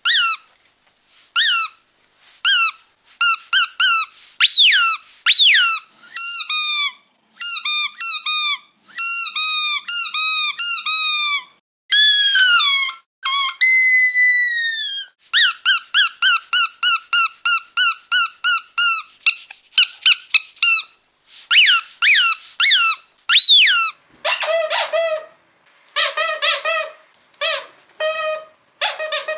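Squeaky dog toy squeezed over and over: short, high squeaks, many dropping in pitch, in quick runs of several at a time, with one longer falling squeak about halfway through. Near the end the squeaks turn lower in pitch.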